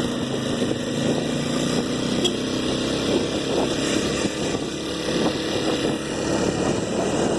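Honda Tornado 250 single-cylinder motorcycle engine running steadily under way with a passenger aboard, with rough wind and road noise over it.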